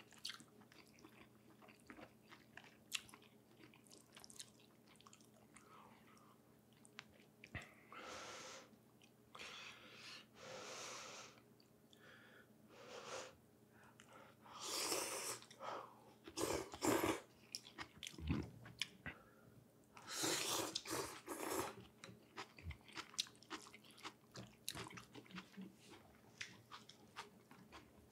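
Close-miked eating of beef pho: chewing with many small mouth clicks, broken by several louder breathy slurps about a second long.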